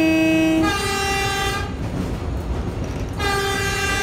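Train horns: one steady blast ends under a second in, then a different, higher-pitched horn gives two blasts about a second and a half apart, with the rumble of a train running between them.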